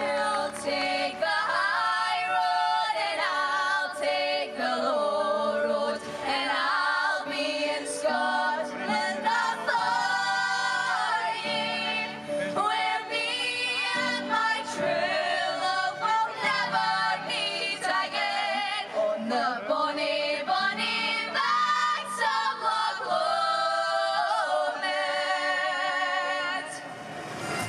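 A group of voices singing a song together in harmony, with phrases that rise and fall and a short lull near the end.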